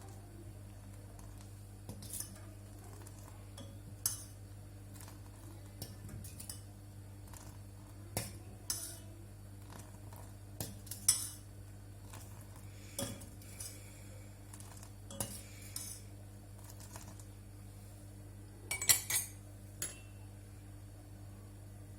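Kitchen utensils clinking and knocking against dishes and pots in scattered light taps every second or two, with a quick burst of clinks shortly before the end, over a steady low hum.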